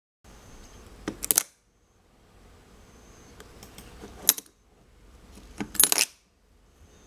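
Small metal parts of a magnetic ornament toy clinking and snapping together as figures are set onto its magnetic base: three quick clusters of sharp clicks, about a second in, near the middle and again near the end.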